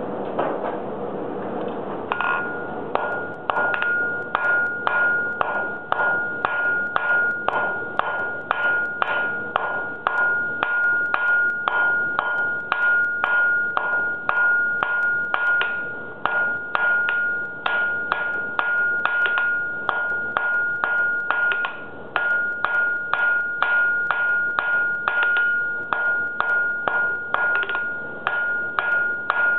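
Hand hammer striking a red-hot steel bar on an anvil, about two blows a second starting about two seconds in, drawing the bar out to a long taper. The anvil rings on one steady high note under the blows.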